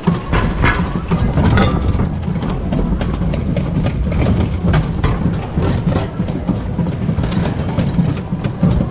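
Dubbed Trabant engine sound effect running steadily, mixed with background music.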